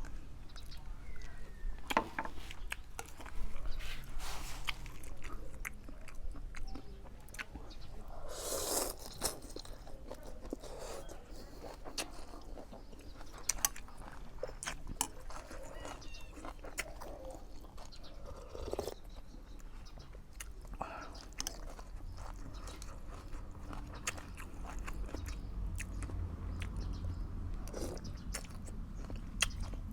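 Someone eating, with chewing, biting and small crunches and clicks from the food throughout.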